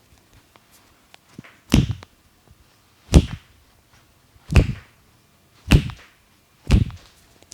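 Five firm hand slaps on bare skin, about one to one and a half seconds apart: percussive slapping strokes of an arm massage.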